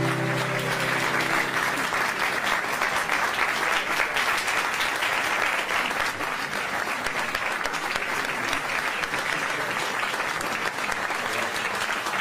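An audience applauding steadily throughout, with the last note of the song fading out under the clapping in the first two seconds.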